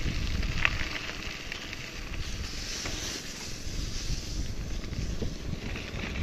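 Wind buffeting the microphone while riding a bicycle over a rough track, with a steady low rumble and scattered small clicks from the tyres and bike.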